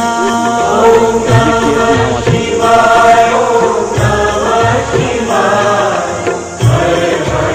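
Background music: a chant sung by a group of voices, with long held notes.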